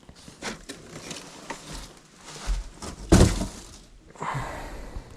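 Furnace-kit parts and packaging being handled: scattered clicks and rustling, with a loud thunk about three seconds in as something is set down, then a short stretch of rustling.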